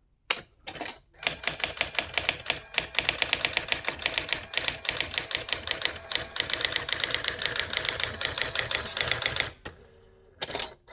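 Brother AX-20 electronic daisy-wheel typewriter printing under computer control, typing out the output of the 'date' command sent to it over serial. A few single strikes come first, then a rapid, even run of print strikes lasting about eight seconds. A short pause with a faint hum follows, then a couple more strikes near the end.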